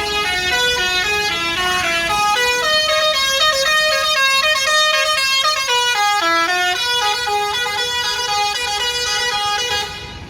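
Bus 'telolet' musical horn playing a tune: several horn tones sounding together in chords, stepping from note to note every fraction of a second. It cuts off near the end.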